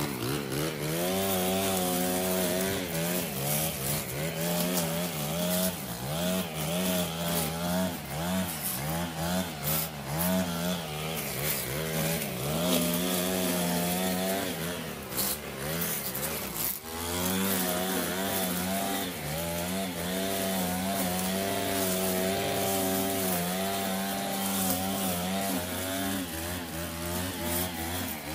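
Stihl FS 90 R string trimmer's small 4-MIX engine running under load as the line cuts tall weeds and grass, its pitch wavering up and down with the throttle. It dips briefly about 17 seconds in, then picks up again.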